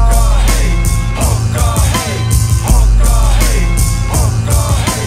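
Instrumental passage of a rap song: heavy bass under a steady drum beat, with no vocals.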